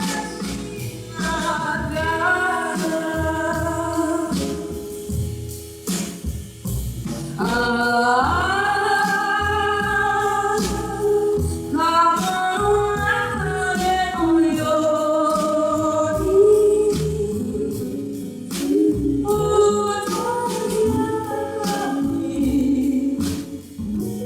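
A ballad performed live: a young girl's solo voice holds long sung notes over band accompaniment with a steady drum beat.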